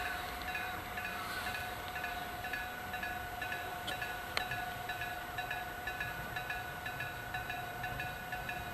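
Electric-bell (denshō-type) railway level-crossing signal ringing, its bell struck about three times a second with a sustained metallic ring. A single sharp click sounds about four seconds in.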